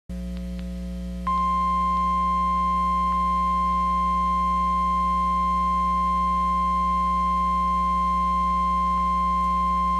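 NOAA Weather Radio 1050 Hz warning alarm tone, the signal that an alert such as a severe thunderstorm warning is about to be read. It is one steady beep that starts about a second in and holds unbroken for about nine seconds, over a constant low hum from the radio feed.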